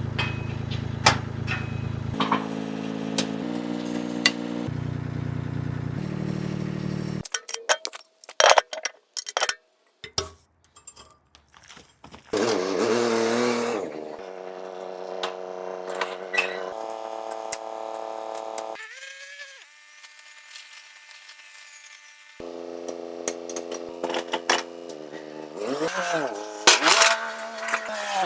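Tractor engine running, its pitch jumping abruptly to new steady speeds several times and rising and falling near the end, with sharp knocks and clunks in between.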